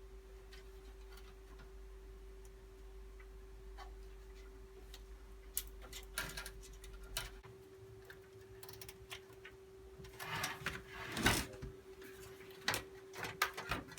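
Scattered clicks and rustles of computer cables and parts being handled inside a PC case during cable tidying, over a steady electrical hum. The clicking gets louder and busier about ten seconds in.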